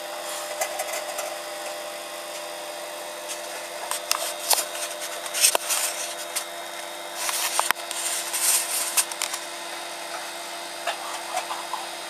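Microwave oven running with a steady hum while a light bulb glows inside it. From about four seconds in come sharp crackles and bursts of hissing from the glowing bulb, with no bang.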